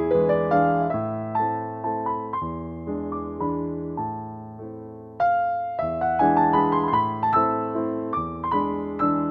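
Background piano music, notes struck and decaying in a gentle melody; it dies away about five seconds in and a new phrase begins.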